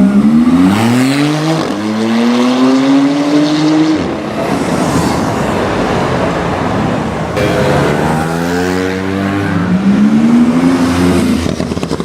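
Tuned Porsche 911 Turbo S twin-turbo flat-six accelerating hard. Its pitch rises, drops at an upshift and rises again; there are two such runs, with a stretch of road noise between them.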